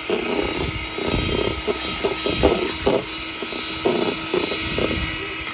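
Electric hand mixer running steadily, its twin beaters whipping egg whites into a foam in a bowl.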